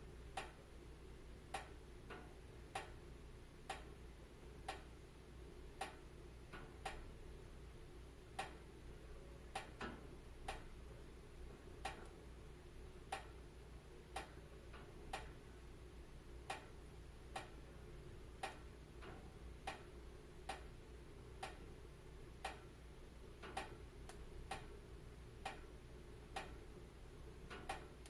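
Wood fire crackling: sharp, irregular pops about one to two a second over a low, steady murmur of the flames.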